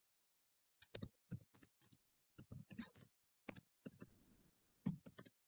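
Faint, irregular keystrokes on a computer keyboard as a short phrase is typed, starting about a second in.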